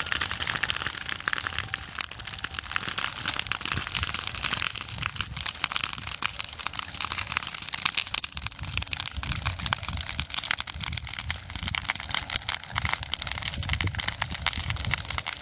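A fire burning with dense, continuous crackling and popping over a low, uneven rumble.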